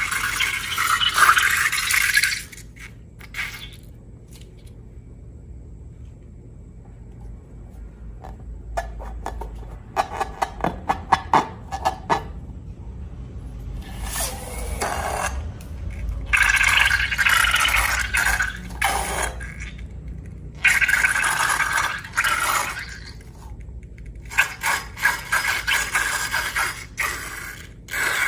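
Slime-making handling sounds: repeated bursts of scraping, a second or two each, with a run of quick sharp clicks about ten seconds in.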